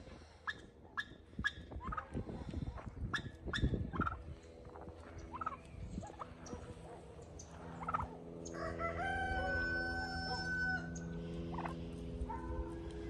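Farmyard poultry calling, turkeys among them: short sharp calls about twice a second at first, then a long steady call lasting about two seconds past the middle, over a low steady hum.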